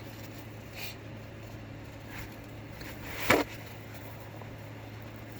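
A single sharp sneeze about three seconds in, after a couple of short breaths: an induced allergy sneeze through a congested nose. A low steady hum sits underneath.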